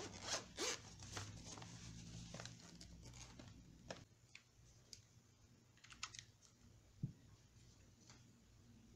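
Faint handling noise: scattered light clicks and rustles as a plastic toy mirror frame is moved about on a cloth-covered table, over a low steady hum.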